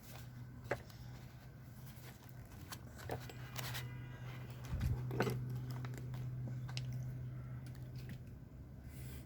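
Scattered clicks and light knocks of roller skate truck parts being handled as the rubber cushions are worked out of the truck, with a heavier thump about five seconds in. A steady low hum runs underneath.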